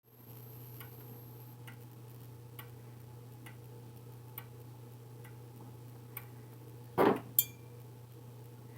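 Grandfather clock ticking evenly, a little under once a second. About seven seconds in there is a loud brief rustling knock, then a sharp click with a short high ring, and after that the ticking stops: the clock has been stopped.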